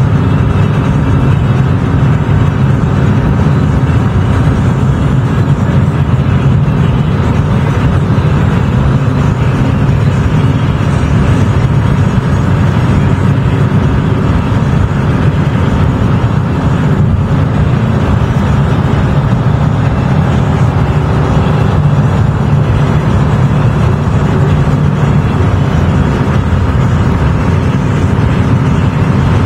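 A car driving at a steady speed: an even, continuous road-and-engine drone that holds level throughout.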